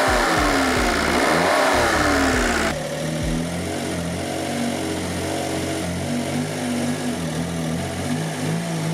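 Daihatsu Mira Turbo kei-car engine, just started after years in storage, running with a lot of noise: its pitch sweeps up and down a few times in smooth rises and falls, then about three seconds in it drops suddenly to a quieter, steadier idle.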